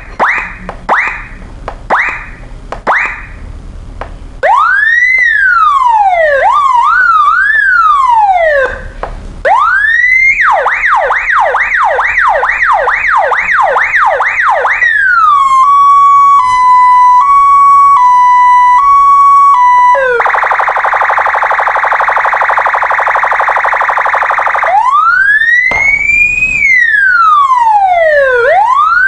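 Electronic five-tone motorcycle siren sounding through its horn speaker and stepping through its tones. It gives four short chirps, then a slow wail that breaks into a warble, then a fast yelp of about two sweeps a second, then a hi-lo two-note alternation. Next comes a harsh steady buzzing horn tone for about five seconds, and near the end a slow rising and falling wail.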